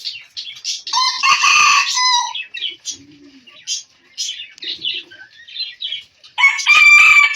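Rooster crowing loudly twice, one crow about a second in and another starting near the end, with small birds chirping in between.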